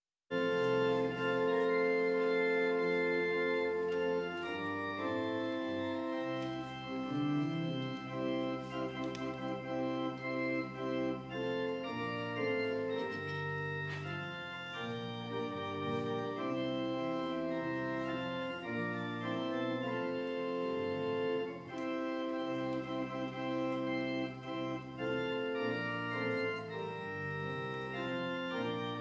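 Church organ playing a slow piece in sustained chords over a low pedal bass line, the chords changing every second or two. It comes in abruptly just after the start.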